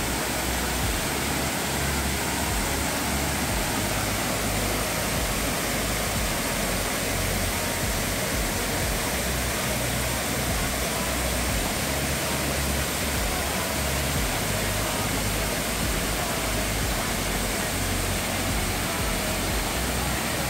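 Steady, even rushing of water, like a waterfall or fast-flowing stream.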